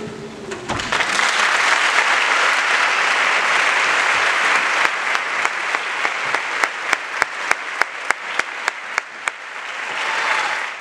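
The ensemble's last cello note fades out, and then an audience applauds. From about five seconds in, the clapping falls into a steady beat, about three claps a second.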